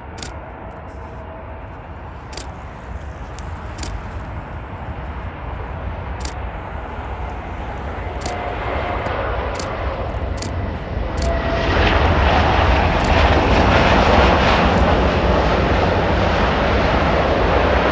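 Jet engine noise from an Airbus A380-800 with four Rolls-Royce Trent 900 turbofans as it lands: a rumbling rush that grows steadily louder as the airliner comes in and touches down. About twelve seconds in, it jumps suddenly to a louder, fuller roar while the plane rolls out along the runway.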